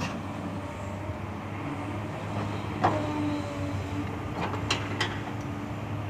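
Hydraulic excavator loading a dump truck with red soil: diesel engine and hydraulics running steadily as the arm swings back to the pile. There is one sharp knock about three seconds in and two more close together near the end.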